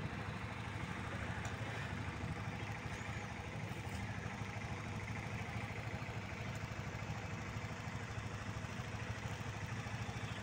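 An engine idling: a steady low rumble that does not change.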